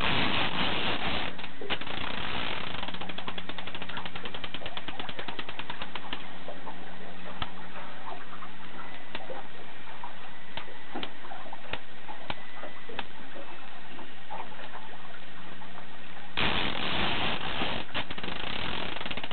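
A fishing reel clicking rapidly under the strain of a big sturgeon on the line. Bursts of rushing noise come at the start and again near the end, and a low steady hum sits underneath until near the end.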